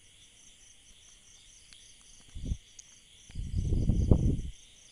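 A kitchen knife cutting through soft white sandwich bread onto a ceramic plate: a short scrape about halfway through, then a longer sawing scrape about a second later. Crickets chirp steadily in the background.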